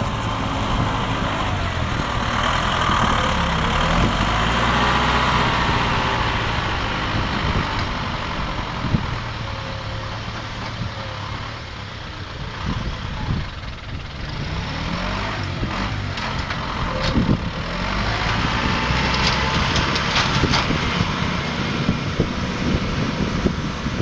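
Diesel tractor engine running steadily with baling machinery working, a rustling, rushing noise that swells and fades, and occasional knocks.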